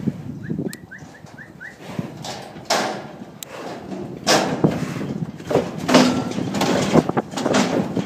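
Cape buffalo hooves clattering and knocking on the transport vehicle's wooden boards as the animals bolt out, a run of loud, sudden knocks starting about three seconds in.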